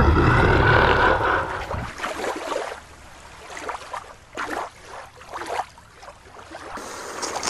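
Water and wind noise, loudest for about the first two seconds, then quieter with scattered short whooshing swells.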